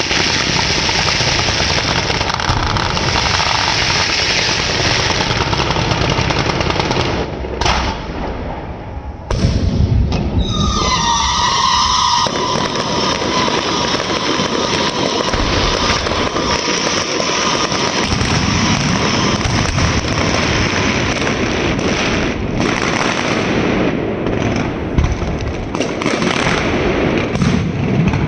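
Continuous dense barrage of firecracker and firework bangs and crackling, easing briefly about eight seconds in. Just after the lull, a whistling tone slides slightly down in pitch and fades within a couple of seconds.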